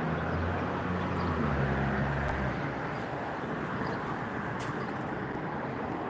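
An engine running with a low, steady hum that stops about two and a half seconds in, over a steady rushing background noise.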